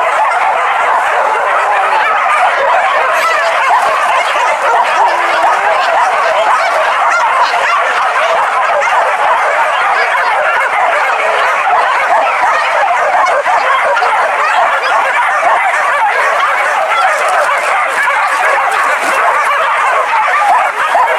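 A pack of village hunting dogs yelping and baying together in a dense, unbroken chorus of many overlapping voices.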